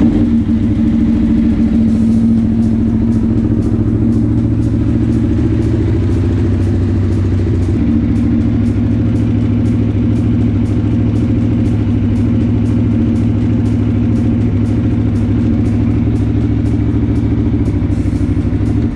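Aprilia Tuono V4 1100 Factory's V4 engine running at a steady idle just after starting, fitted with a Gabro Stage 3 airbox and a fresh ECU flash. It shuts off abruptly near the end.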